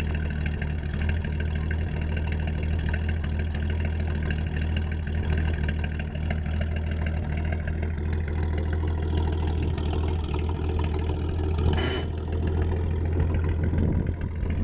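M29 Weasel's Studebaker six-cylinder flathead engine running steadily at idle, with one brief sharp click near the end.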